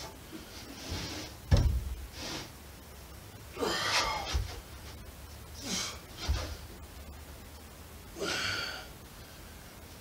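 A lifter breathing hard under a 125 lb plate pullover and press, with forceful exhales and gasps about every one to two seconds. A few dull thumps come in between, the loudest about a second and a half in.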